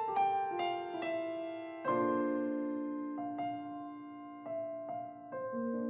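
Background piano music: a falling run of notes, then slow chords that ring out and fade.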